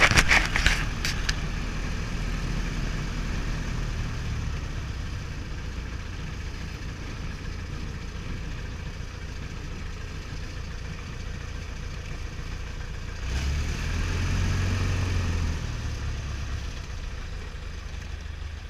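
1961 Piper Colt's Lycoming O-235 four-cylinder engine running at taxi power, heard from inside the cockpit. A short clatter of clicks sounds in the first second, and a little past the middle the engine rises in power for about three seconds before settling back.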